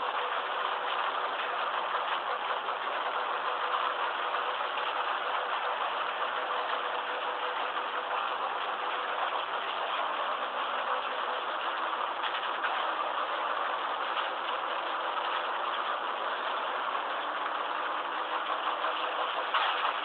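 Ford Fiesta S2000 rally car's engine idling steadily.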